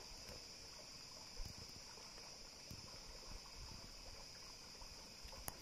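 Faint forest ambience: a steady, high-pitched insect chorus over a low, even background hiss.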